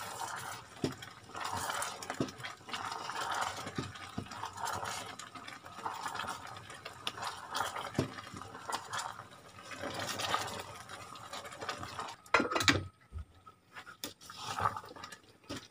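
Thick ginger and brown-sugar syrup boiling hard on high heat in a stainless steel pot, stirred continuously with a wooden spatula. The sound is a sloshing, bubbling noise that swells and fades with the strokes, with a few light knocks of the spatula against the pot.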